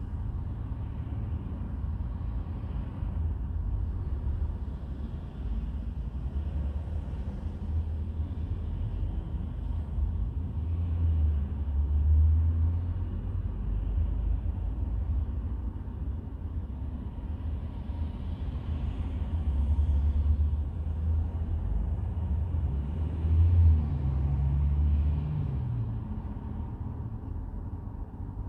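Low, continuous rumble of the bus's Volvo diesel engine running, swelling louder twice, about a third of the way in and again near the end.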